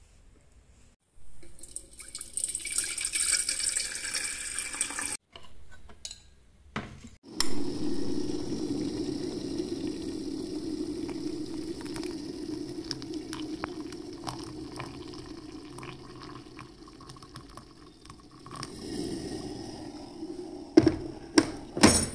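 Water pouring from a stainless-steel electric kettle into a ceramic mug onto a tea bag: a long steady pour that slowly fades. It follows an earlier hissing stretch of water and ends with a few light clinks of crockery near the end.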